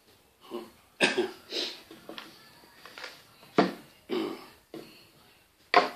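A series of irregular knocks and clunks as a long metal 75mm rocket motor casing is handled and set down on a wooden table, with some paper rustling between them.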